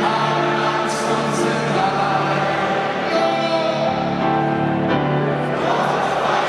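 Live stadium concert music: a slow song with long, held sung notes over instrumental accompaniment, and many voices singing together.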